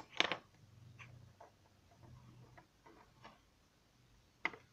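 Light clicks and taps of watchmaking tools being handled on a bench: a sharp click just after the start as a plastic oil pot is put down, a few faint irregular ticks, and another sharp click near the end as fingers take hold of the metal movement holder.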